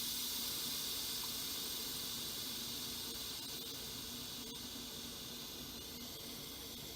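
Steam hissing steadily out of the pressure-release valve of a Pampered Chef Quick Cooker electric pressure cooker during a quick release, slowly growing fainter as the pressure inside drops.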